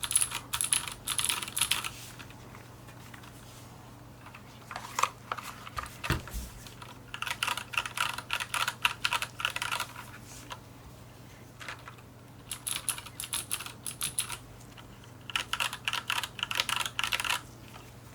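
Typing on a Varmilo Pro Panda mechanical keyboard with unlubricated Cherry MX Blue clicky switches: four bursts of rapid keystrokes with short pauses between them.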